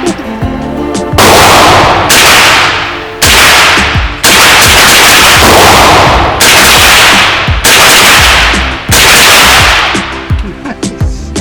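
About six gunshots, fired one every one to two seconds. Each is loud and sharp, with a long ringing tail.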